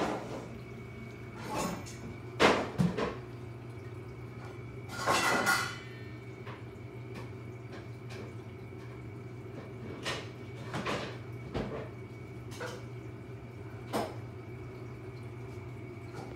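Steady low hum of a reef aquarium's pumps running, with a faint steady high tone, broken by a scattering of irregular clicks and knocks. The loudest knocks come about two and a half seconds in, and a longer clatter about five seconds in.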